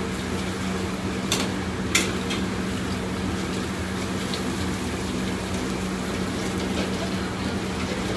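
Commercial wok range running with a steady hum and rush of noise while food sizzles in the wok, and the metal ladle strikes the wok twice, sharply, a little over a second in and again half a second later.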